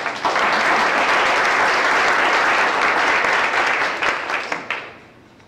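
Audience applauding, starting abruptly and holding steady, then dying away about four and a half seconds in.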